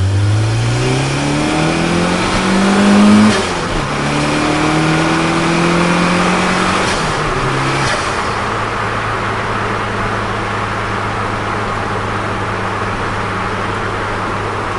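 Turbocharged Nissan Micra's engine heard from inside the cabin, accelerating hard with rising revs. It drops in pitch at a gear change about three seconds in and climbs again. Near eight seconds the throttle closes and it settles to a steady cruise with road noise.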